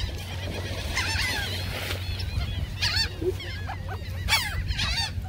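A flock of gulls calling, many short overlapping squawks in quick succession, over a steady low rush of background noise.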